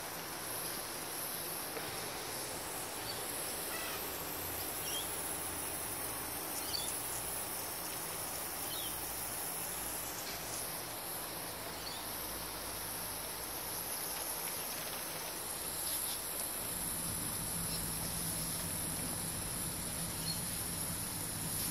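Garden hose nozzle spraying a fine shower of water, a steady hiss, with a continuous high-pitched insect trill behind it.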